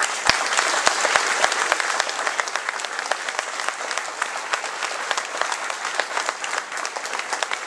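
A large audience applauding, dense clapping that starts all at once and thins slightly toward the end, with a few louder, closer claps in the first second or so.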